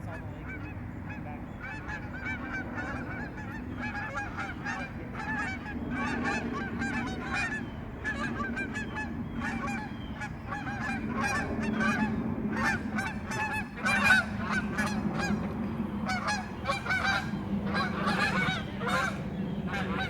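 A flock of birds calling, many short overlapping calls in quick succession, getting denser and louder after about ten seconds.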